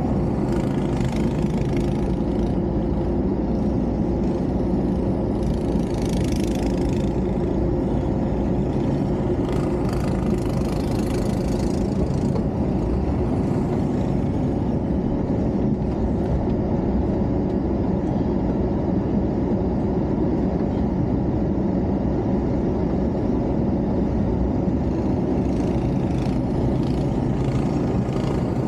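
An engine running steadily, with a few short hissing surges higher up about a second in, around six seconds in, around ten to twelve seconds in and near the end.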